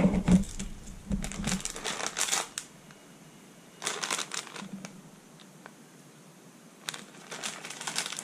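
Crinkling of a shiny plastic snack packet as it is picked up and handled, in three separate bursts, after a brief muffled thump at the start.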